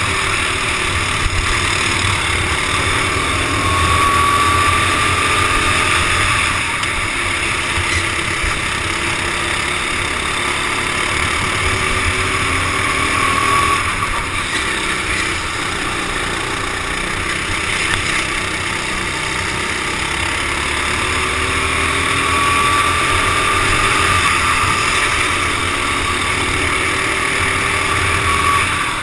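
Racing kart engine running hard, its pitch rising as it speeds up and falling as it slows, several times over, with other karts running close by. A steady low rumble of wind on the helmet-mounted camera runs under it.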